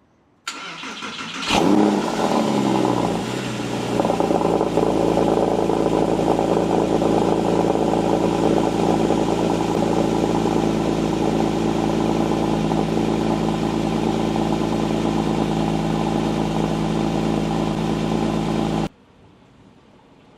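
Porsche 997 Carrera's 3.6-litre flat-six being cold-started: the starter cranks briefly, the engine catches about a second and a half in with a rev flare, then settles into a steady fast idle. It cuts off abruptly near the end.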